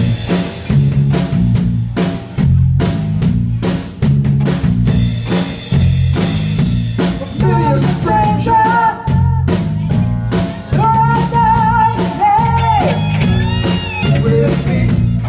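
Live rock band playing: a drum kit keeps a steady beat under a stepping bass line and electric guitar, with keyboard. About halfway through a high singing voice comes in and sings in short phrases.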